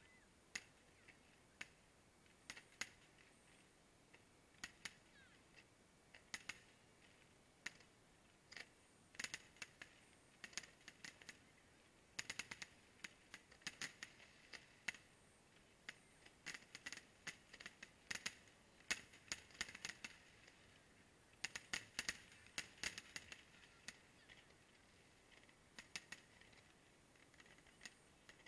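Faint crackling fireworks: irregular sharp crackles that come in dense clusters, without deep booms.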